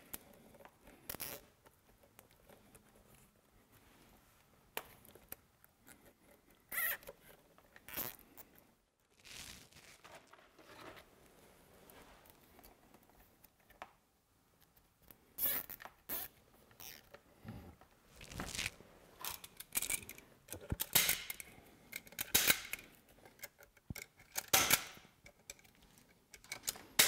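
Plastic zip ties being pulled and ratcheted tight around transducer cables: scattered short zipping rasps and sharp clicks with quiet gaps between, busiest in the second half.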